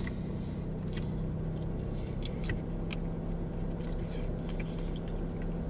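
Steady low hum of an idling car, with scattered faint clicks and smacks of someone eating saucy chicken wings by hand.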